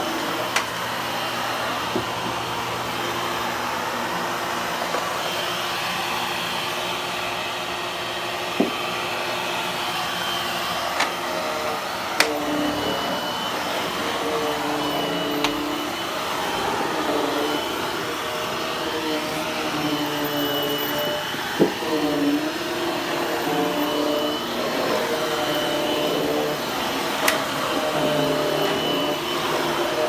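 Hushtone upright vacuum running on its low power setting, vacuuming olefin carpet; its motor hum wavers slightly in pitch as it works. A few sharp knocks sound over it.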